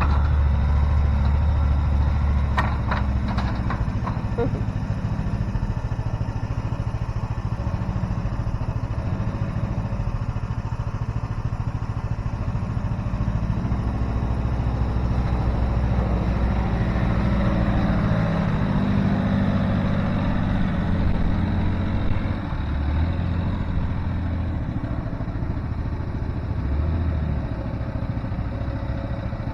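A small engine running steadily, its pitch shifting up and down, with a few sharp clanks a few seconds in.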